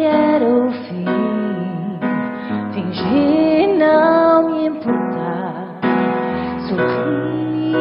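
Slow, sad ballad: a woman singing over keyboard accompaniment with sustained chords.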